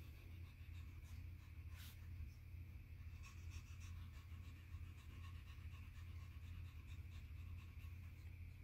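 Tabby cat panting faintly in quick dog-like breaths, over a steady low hum.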